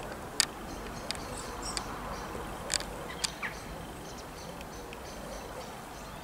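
Scattered short, sharp bird chirps, about six in the first three and a half seconds, one falling in pitch, over a steady faint background hum.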